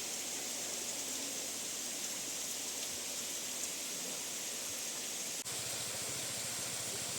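Steady hissing rush of a waterfall's falling water, with a brief dip about five and a half seconds in.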